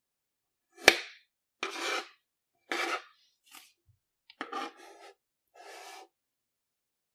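Plastic knife slicing through molded kinetic sand: a sharp tap about a second in, then about five short gritty, rasping cuts with silences between them.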